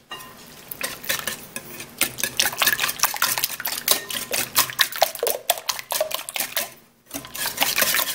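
Wire balloon whisk beating a liquid egg-and-cream custard in a mixing bowl: fast, continuous clicking strokes of the metal wires against the bowl. The whisking pauses briefly about seven seconds in, then starts again.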